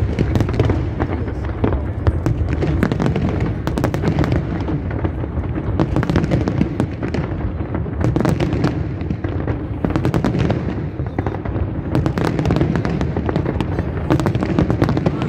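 Large aerial fireworks display: shells bursting in a dense, continuous barrage with rapid crackling throughout.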